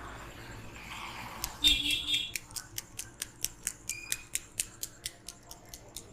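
Barber's scissors snipping in a fast, even rhythm of about four to five clicks a second. A short, loud, high squeak sounds about two seconds in.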